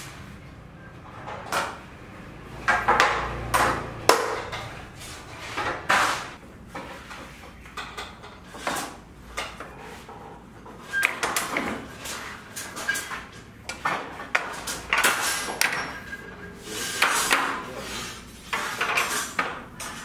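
Steel rebar being bent by hand with a bending bar on a wooden jig set with steel pegs: irregular metal clanks and scrapes, a few with a brief ring.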